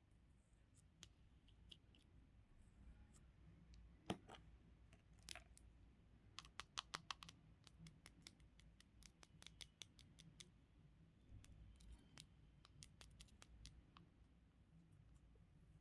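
Faint handling sounds of small objects: scattered sharp clicks and taps, one louder click about four seconds in and a quick run of clicks around seven seconds in.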